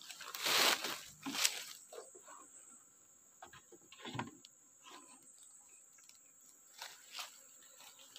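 Footsteps crunching through dry leaves and dead palm fronds: a few loud crunching steps in the first second and a half, then only sparse, soft crackles and knocks.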